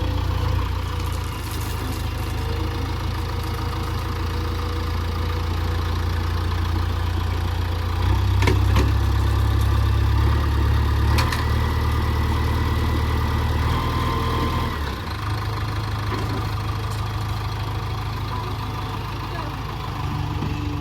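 Heavy diesel engine running steadily, working harder for several seconds in the middle before settling back. Two sharp knocks sound during the louder stretch.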